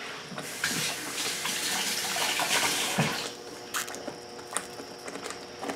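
Thick tomato sauce simmering uncovered in a cast iron skillet, spitting with a few sharp pops in the second half. For the first three seconds a steady watery rush covers it, ending with a dull thud.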